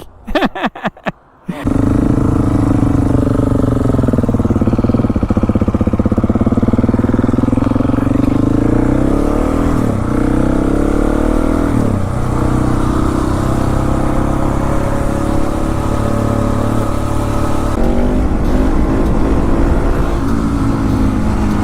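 Motorcycle engine running as the bike rides, coming in suddenly loud a couple of seconds in. Its pitch rises and drops several times over the next ten seconds, then holds fairly steady.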